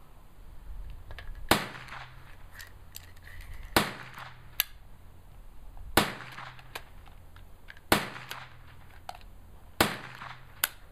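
Gunshots: sharp cracks, about one every two seconds, each with a short echoing tail.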